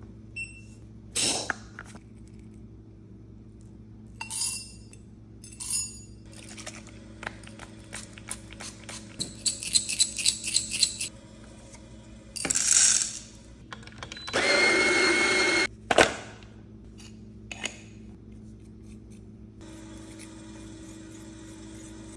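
Espresso-making sounds: taps and clicks, a run of rapid clicking, then an electric coffee grinder running for about a second and a half, followed by a sharp knock.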